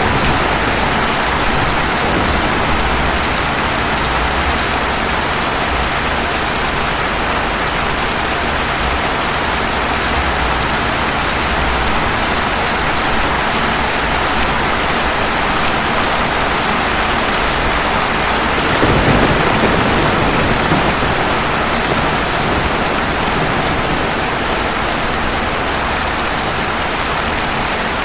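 Steady rain, an even hiss of falling drops. About two-thirds of the way through, a low rumble of thunder swells briefly and fades.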